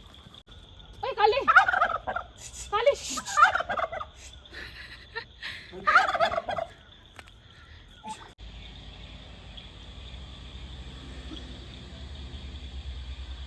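Domestic fowl calling three times, each call about a second long. After that comes a steady low background hum.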